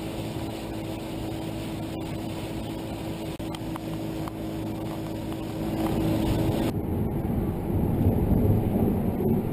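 Mercury outboard motor running at speed on an aluminum boat, a steady engine tone under wind and water rush. About two-thirds of the way through the sound changes suddenly to a louder, rougher rumble of water and wind without the engine tone.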